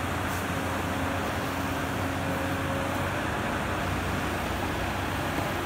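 Tata Hitachi crawler excavator working: its diesel engine runs steadily with a low hum as the hydraulic arm drags and curls the bucket through soil.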